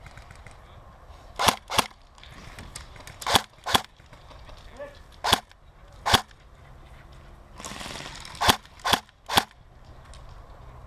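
Airsoft gun shooting single shots: nine sharp cracks, some singly and some in quick pairs, spread unevenly across the stretch.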